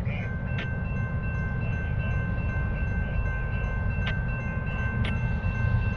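Railroad grade-crossing warning bell starting to ring as the crossing signals activate for an approaching freight train, a steady ringing over a low rumble, with a few sharp clicks.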